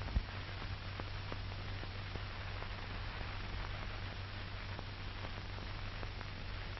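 Background noise of an old optical film soundtrack: a steady hiss with a low mains hum and scattered faint crackling clicks, with no other sound.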